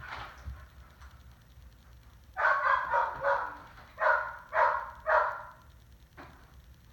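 A dog barking: a run of about five barks starting a little over two seconds in, the first two running together and the last three evenly spaced about half a second apart.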